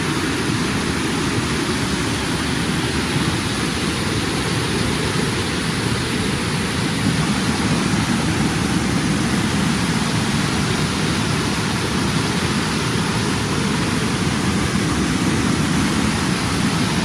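A waterfall's water falling and splashing, a loud, steady rushing that does not change.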